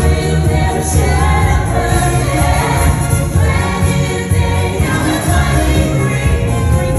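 Live stage-musical number: several cast voices singing together over loud accompaniment with a strong, pulsing bass, heard from the auditorium.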